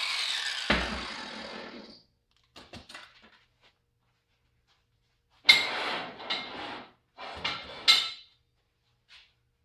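Angle grinder winding down after being switched off, its whine falling in pitch, with a single thud about a second in. A few seconds later, steel tubes clank against each other and the steel tabletop in a run of sharp knocks as they are gathered up.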